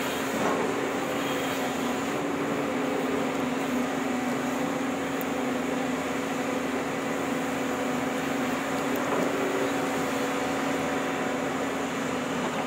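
JCB crawler excavator's diesel engine and hydraulics running steadily under load, a constant drone with a steady hum, as the arm swings round and lowers the bucket into the soil.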